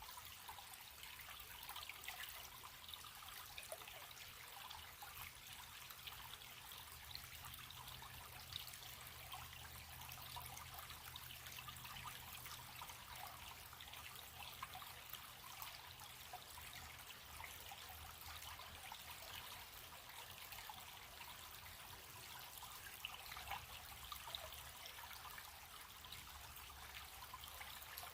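Small stream running steadily: a faint, even trickle and babble of water with fine flickers of splashing.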